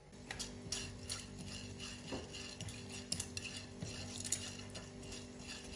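Spatula stirring whole black peppercorns and cloves as they fry in hot oil in a granite-coated pot, with many light clicks, taps and crackles against the pot. A steady low hum runs underneath.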